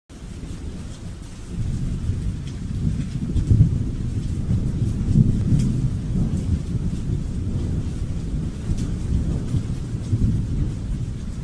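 Rain falling during a thunderstorm, with a long low rumble of thunder that swells about a second and a half in and keeps rolling, over a steady hiss of rain with scattered drop ticks.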